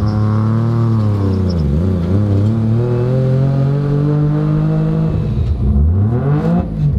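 Three-rotor Mazda RX-7's street-ported rotary engine pulling hard on the street with no boost, its raw untuned note breaking up. The revs fall for the first couple of seconds, then climb steadily. After a sharp dip about five and a half seconds in, they rise quickly to a high rev and drop again near the end.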